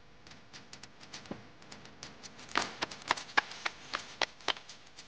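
Hands clapping and slapping on knees in a hand-jive routine, with no music under them: sharp, uneven taps, sparse at first, then louder and quicker from about halfway through.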